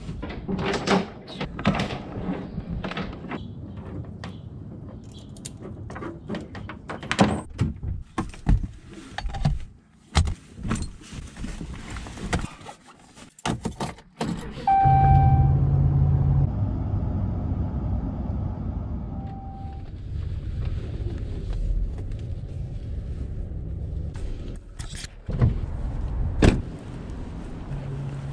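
Clicks, knocks and rattles as a kayak and its tie-down straps are handled in a pickup truck bed. About halfway through, the pickup's engine starts and runs with a steady low hum, with a short electronic chime as it starts and again a few seconds later.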